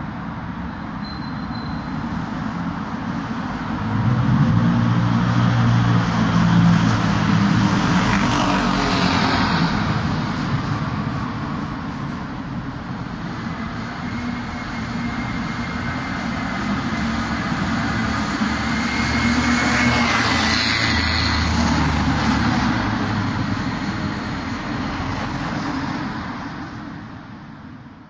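Road traffic passing along a street: a steady rumble of engines and tyres that swells twice as vehicles go by, with a faint high whine rising in between. The sound fades out at the end.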